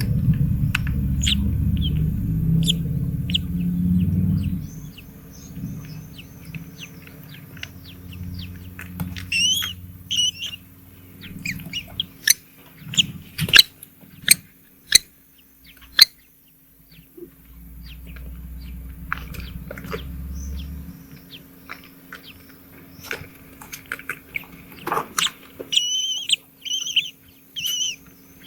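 Small birds at a nest giving many short, high chirps, with a low rumble in the first few seconds. Several sharp clicks near the middle are the loudest sounds.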